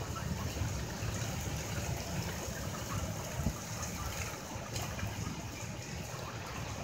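Gusty wind ahead of a thunderstorm, a steady rushing noise with low rumbling buffets on the microphone.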